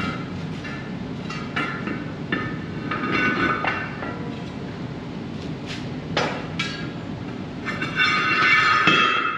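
Steel disc harrow blades and spacers being worked onto the gang shaft: metal scraping on metal with ringing squeals in several spells, the longest and loudest near the end, and two sharp clanks a little past the middle.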